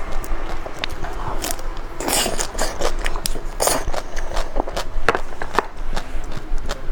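Close-miked bites into a chocolate-shelled ice-cream bar: the hard chocolate shell cracks and crunches, with a run of small crackles from chewing. The loudest crunches come about two seconds and three and a half seconds in.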